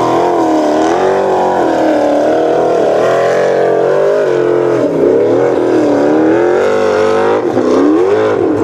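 Formula Offroad hillclimb buggy's engine revving hard under full load up a steep sand slope, its pitch surging up and down again and again.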